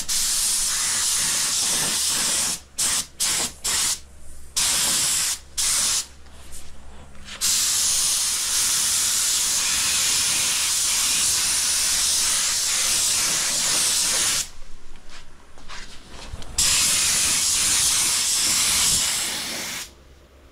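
Compressed-air spray gun hissing as it sprays clear coat: a series of short trigger bursts first, then long continuous passes, with one short break.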